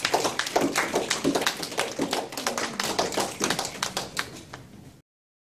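Small audience applauding, the claps thinning out and then cutting off abruptly about five seconds in.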